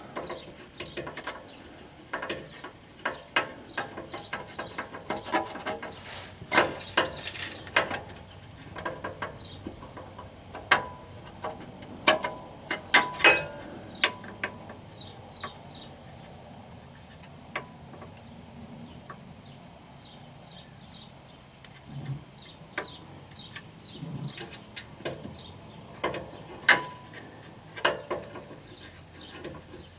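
Irregular sharp metallic clicks and knocks, some in quick clusters, from hand tools and metal parts being worked while a transmission crossmember is lined up with its bolt holes.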